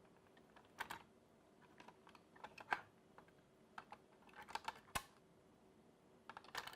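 Faint, irregular plastic clicks and taps from two AA batteries being taken out of and pushed back into the battery drawer of a First Alert smoke and carbon monoxide alarm, about a dozen in all, some in quick pairs.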